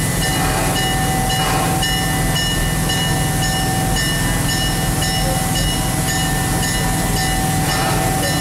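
A locomotive bell ringing over and over, about two strikes a second, signalling that the train is about to depart. Beneath it runs the low, steady rumble of the standing train's engine.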